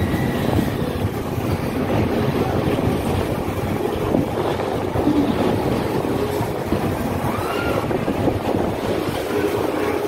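Wind buffeting the microphone in a steady rumbling haze, with faint distant voices now and then.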